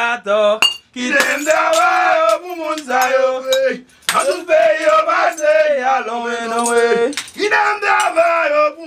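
A voice singing a Vodou chant in long held phrases, with many sharp clinks of broken glass scattered through it.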